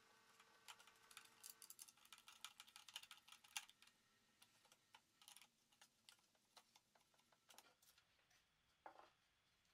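Faint, irregular clicking and ticking as a wood screw is driven by hand through a steel figure-eight fastener into wood. The clicks come thick and fast for the first few seconds, then thin out.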